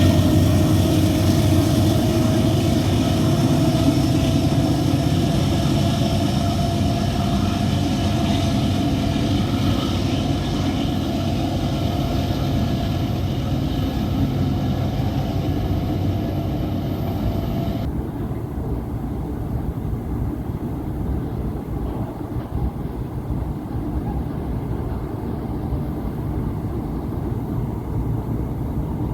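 Freight train of empty pulp wagons passing with a continuous low rumble. A steady, slowly rising whine and the higher hiss above it cut off abruptly about eighteen seconds in, while the rumble goes on.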